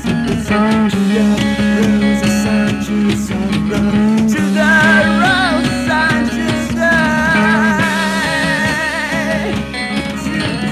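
Psychedelic rock music with guitar over a steady low drone. A wavering lead line with vibrato comes in about four and a half seconds in.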